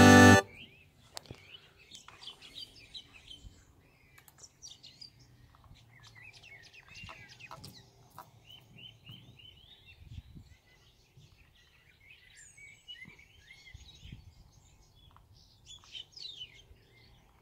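Music from the Sony SS-D170 speaker cuts off abruptly about half a second in. After it, faint birdsong and chirps carry on in the background, with a few light clicks.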